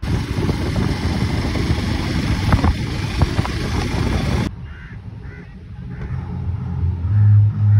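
Hero Xpulse 200 4V motorcycle riding at speed, with loud wind rush over the camera mic and the engine running underneath. It cuts off sharply about four and a half seconds in to a quieter roadside sound with a low, uneven hum that grows louder near the end.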